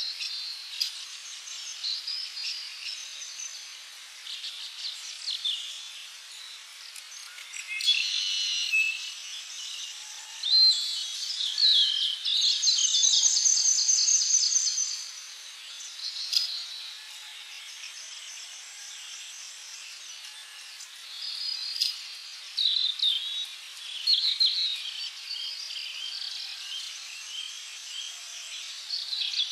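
Several birds chirping and singing over one another in short calls and whistles, with a fast, even trill of repeated high notes about halfway through as the loudest part.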